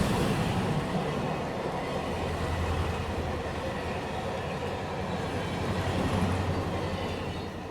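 Train running past on the rails, a steady heavy rumble that fades away near the end.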